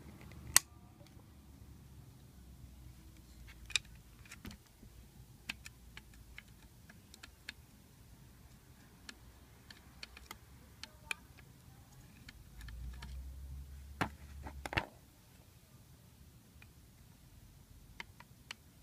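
Irregular light metallic clicks and taps of a screwdriver and small parts being handled on a car alternator's voltage regulator and brush holder. There is a sharp click about half a second in and two stronger clicks about three-quarters of the way through.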